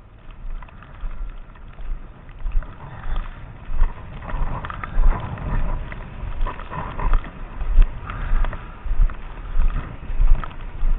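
Footsteps crunching through snow at a steady walking pace, about three steps every two seconds.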